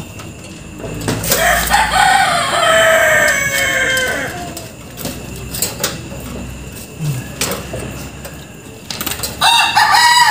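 A rooster crowing twice: one long crow starting about a second in, sliding slightly down in pitch, and a second crow beginning near the end. A few short clicks in between.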